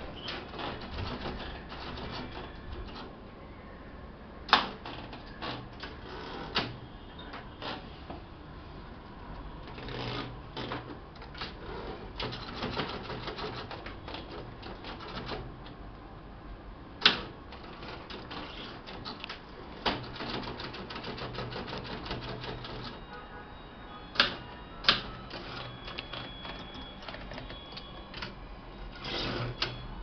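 Wide-carriage manual typewriter being typed on: uneven runs of rapid key strikes clattering on the platen, with a handful of sharper, louder single clacks.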